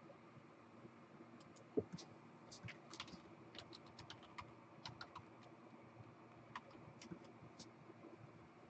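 Faint, irregular clicking of typing on a computer keyboard, with one louder thump about two seconds in.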